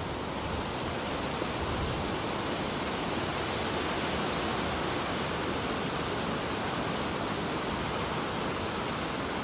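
Heavy, cold wind blowing steadily through large trees, a dense rushing of swaying branches and leaves with no pauses, swelling a little in the middle.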